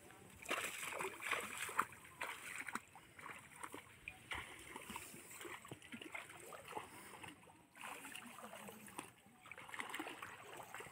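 Footsteps wading through shallow muddy water, with irregular splashing and sloshing at each step.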